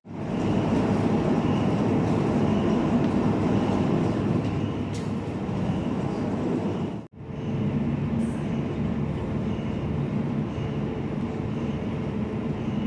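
Railway wheel drop machinery running steadily with a dense mechanical hum as it lifts a locomotive pony truck into place. The sound cuts out for a moment about seven seconds in, then carries on.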